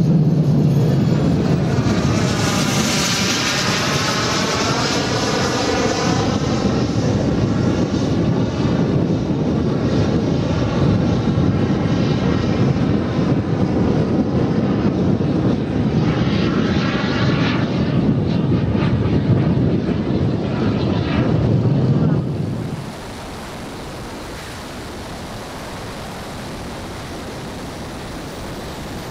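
Four JetsMunt 160 model gas turbines of a giant 1/5-scale Avro Vulcan RC jet, flying past with a loud jet rush whose pitch shifts as the aircraft passes. About 22 seconds in it changes abruptly to a quieter, even rush of air and turbine noise heard from a camera on the aircraft itself.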